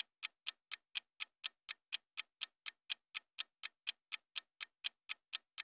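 Clock-ticking sound effect accompanying an on-screen countdown timer: short, even ticks, about four a second.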